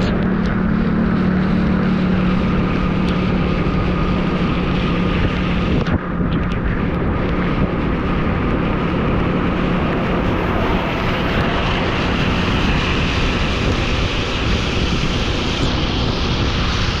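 A vehicle engine drones steadily under a loud, dense rush of wind and road noise, with one brief dip about six seconds in.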